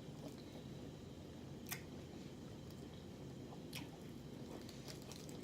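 Close-up eating sounds of rotisserie chicken being chewed: soft wet chewing with a few sharp mouth clicks and smacks, the loudest about two seconds in and another about four seconds in, over a low steady hum.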